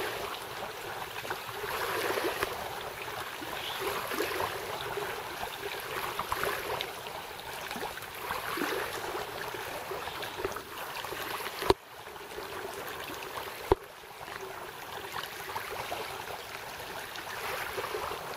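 Outdoor lakeside ambience: a steady rushing hiss of water and air noise. Two sharp clicks break it, about 12 and 14 seconds in.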